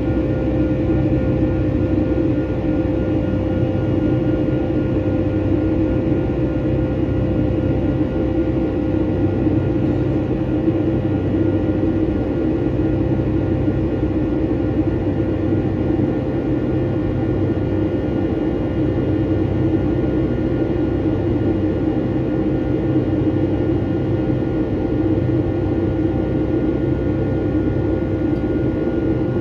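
Steady drone inside the cabin of a Boeing 757-200 with its engines running, heard from a forward window seat. The low rumble and airflow noise carry a few steady tones from the engines, and nothing in them rises, falls or breaks.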